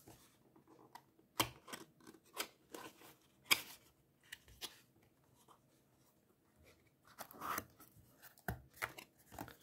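Small paperboard box being opened by hand: a flap lifted and the cardboard inner holder slid out, giving a string of short scrapes and rustles, with a longer sliding rustle about seven seconds in and a few sharp taps near the end.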